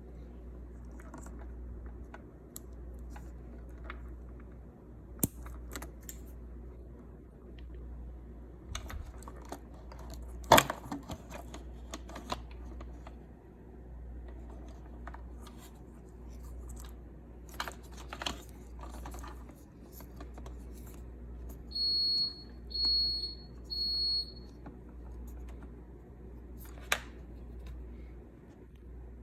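Scattered clicks and knocks of hands working with parts and tools over a steady low hum, with one sharper click about a third of the way in. Near the end of the second third come three short, high, even-pitched electronic beeps in quick succession.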